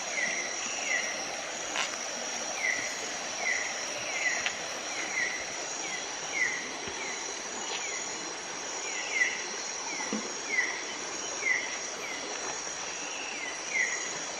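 Night-time tropical rainforest insect chorus: a steady high-pitched drone, with short falling chirps repeating unevenly about every half second.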